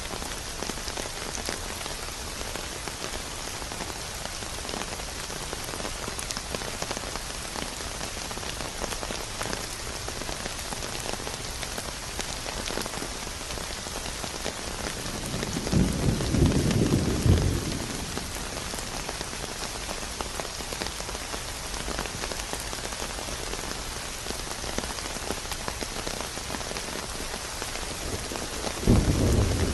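Steady rain falling and pattering on a surface. Twice a short, low rumble of thunder rises over it, once about halfway through and again at the very end.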